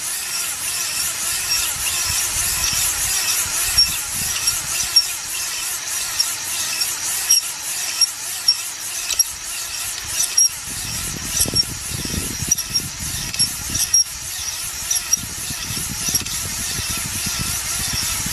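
Cordless drill spinning a flexible-shaft stone cylinder hone inside a bore of a Suzuki F10A engine block, the honing stones rasping against the cylinder wall as the hone is stroked in and out. Steady whirring and scraping with sharp ticks about once a second, and a short break about ten seconds in.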